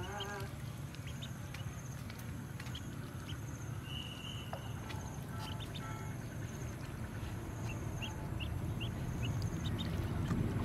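Ducklings peeping in short, scattered high chirps, one held a little longer about four seconds in, over a steady low rumble that grows slightly louder near the end.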